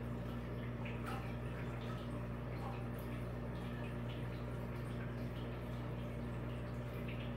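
A steady low electrical hum with faint, scattered small ticks over a light hiss.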